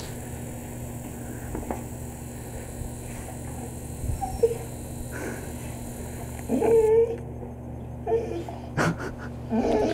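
A dog whimpering, a few short high whines, the longest about two thirds of the way in.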